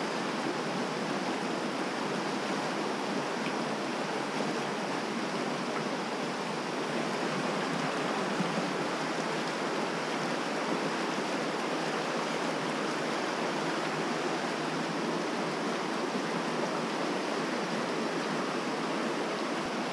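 Mountain stream rushing steadily, an even wash of flowing water.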